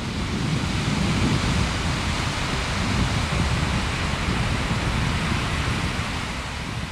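Sea surf washing onto a beach: a steady rushing noise of breaking waves.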